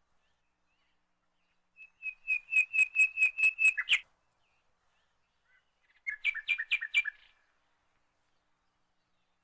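A small songbird chirping in two quick runs of clear, high notes, about six to eight notes a second. The first run starts about two seconds in and ends on a sharper note; the second comes about six seconds in.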